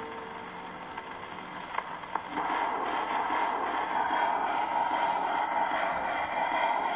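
Acoustic gramophone's needle running on in the groove of a 78 rpm shellac record after the song has ended: surface hiss with a few clicks, then, about two seconds in, a louder steady swishing hiss as the needle travels into the run-out groove.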